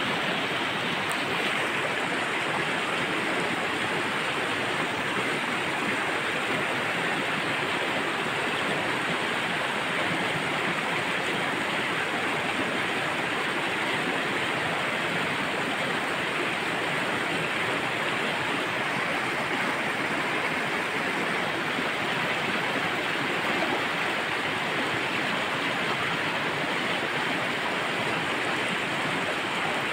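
Water stream flowing, a steady, unbroken sound of running water.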